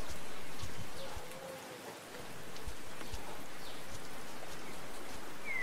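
Steady outdoor background hiss with a few faint high chirps. The hiss dips briefly about two seconds in.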